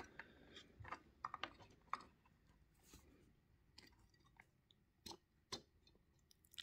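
Faint small clicks and taps of fingers working a battery into a plastic battery compartment on a model diorama building: several in the first two seconds, then a few scattered ones.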